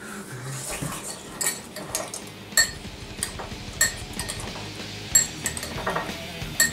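Spoons clinking and scraping against ceramic bowls as two people eat, with sharp, irregular clinks several times.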